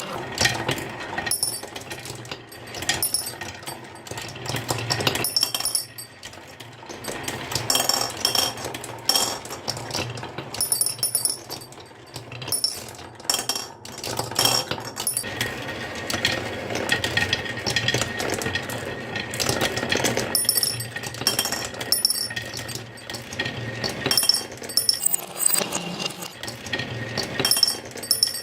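Marbles rolling down a wooden HABA slope marble run: a steady rolling rumble with constant clicks and clinks as they strike the track pieces and one another.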